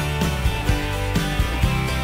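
Background music with a steady beat and guitar.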